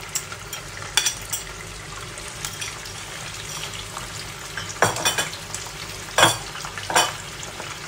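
Boiled, shredded chicken frying in hot oil in a non-stick pan: a steady sizzle, broken by a handful of sharp pops of spitting oil, most of them in the second half.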